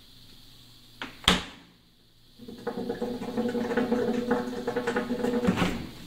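A GE refrigerator's freezer door thumps shut about a second in; about a second later a rapid fluttering knock over a low hum starts, like drumming on a bongo, and runs for about three seconds before stopping. The installer likens it to suction pulling on the condensate drain line as the sealed cabinet draws air through it.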